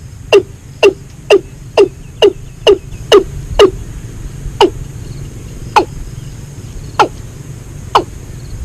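A dozen sharp tool strikes, about two a second at first, then slowing to about one a second in the second half, over a steady low hum.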